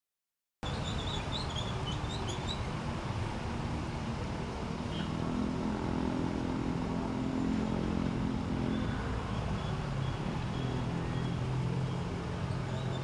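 Road traffic with large bus engines passing. The sound cuts out briefly at the start, then a steady road noise carries a few high chirps. One engine drone swells from about five seconds in, and a lower one follows near the end.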